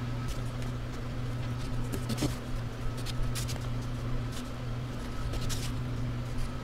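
Light rustling and occasional clicks as a cardboard sheet and a plastic template are handled and marked with a pencil, over a steady low electrical hum.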